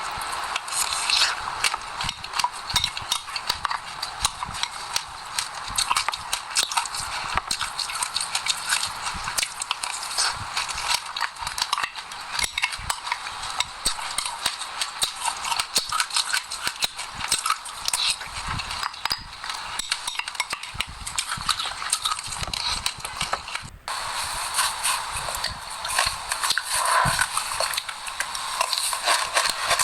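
Close-miked chewing of seeds: a dense, continuous stream of small crunches and crackles, with a brief break about three quarters of the way through.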